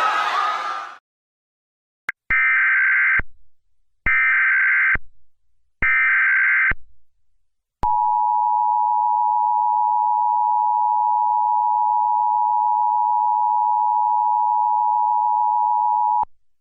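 Emergency Alert System tones: three short bursts of warbling SAME header data, then the steady two-tone EAS attention signal held for about eight seconds before cutting off. A loud noisy din cuts off within the first second.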